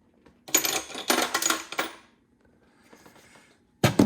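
Metal hand tools clinking and clattering together as they are set down, a quick run of clinks followed by a sharp clank near the end.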